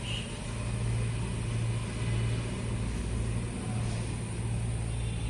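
A steady low mechanical hum, like a machine running, over a faint even hiss.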